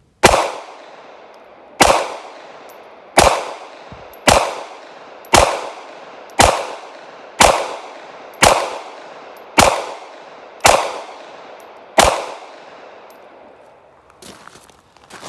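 Smith & Wesson Bodyguard 2.0 .380 ACP pocket pistol fired in slow, steady succession: eleven sharp shots about a second apart, each with a short echoing tail. Faint handling clicks follow near the end.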